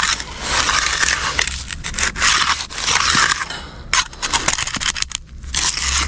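Steel gauging trowel scraping across wet, firmed-up concrete in a series of short back-and-forth strokes, smoothing the slab's surface along its edge.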